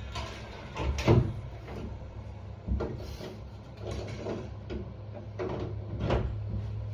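Irregular knocks and clatter of door latch hardware being handled and fitted against a wooden door, the loudest about a second in, over a steady low hum.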